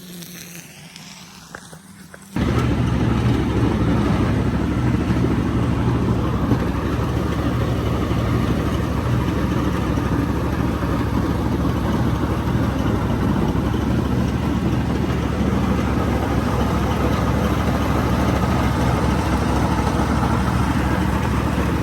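Riding lawn mower engine running steadily at a constant drone. It comes in suddenly a little over two seconds in.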